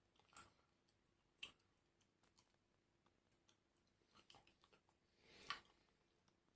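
Faint eating sounds: scattered soft clicks and smacks of chewing, with the loudest a little after five seconds in.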